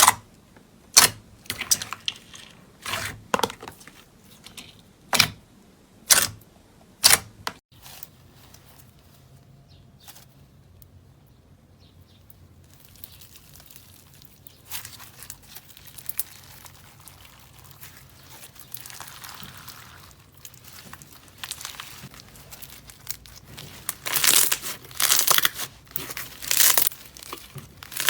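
Slime being squeezed and poked by hand: a run of sharp pops about once a second, then a soft crinkling that grows into louder crackling near the end.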